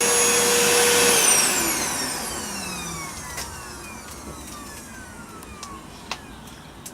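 Household vacuum cleaner running, then switched off about a second in, its motor whine falling steadily in pitch and fading as it winds down. A few small clicks follow.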